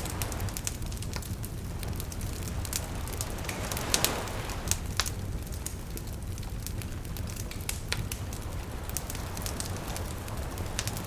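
Wood fire crackling with frequent sharp pops over a steady low rumble, with gentle lapping water behind it; a swell of washing water and a cluster of louder pops comes about four seconds in.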